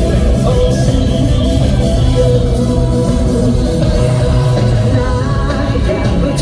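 Live rock band playing loud, with electric guitar, bass and drums under a sung lead vocal.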